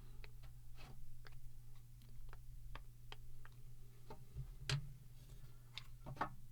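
Irregular light clicks and taps of a plastic ink cartridge being handled and pried at, a few a second, with one sharper click near the middle, over a faint steady hum.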